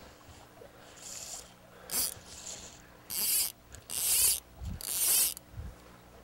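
Click-and-pawl fly reel buzzing as fly line is pulled off it in several short pulls.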